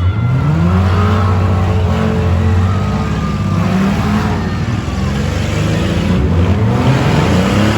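Six-cylinder demolition derby car engines revving hard, the pitch repeatedly climbing and dropping as the cars accelerate and back off.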